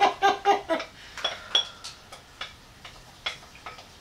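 A man laughs briefly, ha-ha-ha, then a spoon clicks and taps irregularly against a bowl as mashed potato is scooped out onto a fish pie.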